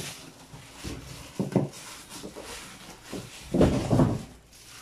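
Cardboard box and its packing being handled on a table: rustling and dull knocks, with one knock about a second and a half in and a louder cluster of knocks and scraping from about three and a half to four seconds in.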